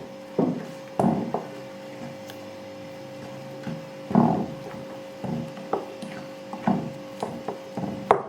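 Electric blender grinding cooking spices, its motor running with a steady whine, over irregular knocks and thuds. The loudest knock comes about four seconds in.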